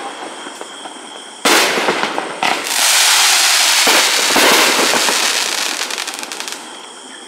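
Consumer firework cake (an 18-shot 500-gram aerial repeater) firing its last shots. A sharp burst comes about one and a half seconds in, followed by a dense stretch of bursting and crackling that then fades away.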